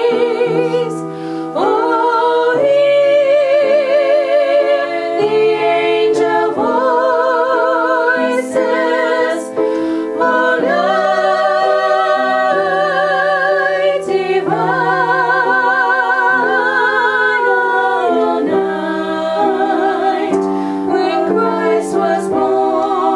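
Music with singing: long held notes sung with vibrato over a lower accompanying line.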